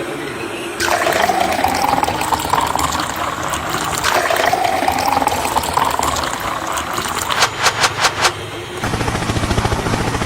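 Rushing, gushing water with a tone that rises twice, then a few sharp clicks and a fast, low pulsing near the end.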